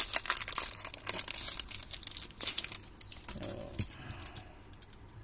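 Thin clear plastic film crinkling and tearing as a pencil pack is pulled open: dense crackling for the first two seconds or so, then thinning to a few light rustles and taps.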